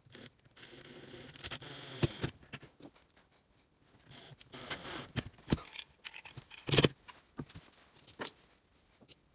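Workbench handling noises: a scraping rustle for about a second and a half, then scattered light knocks and taps, the loudest near the end.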